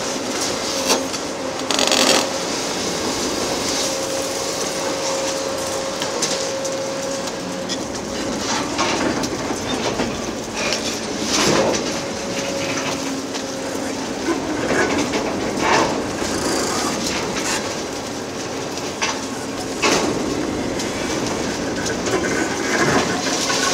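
Caterpillar 390F L excavator working a Hydraram HCC-95V hydraulic concrete crusher on a bridge, its engine and hydraulics running with a steady hum. Irregular cracks and knocks of concrete being crushed and breaking come through over it.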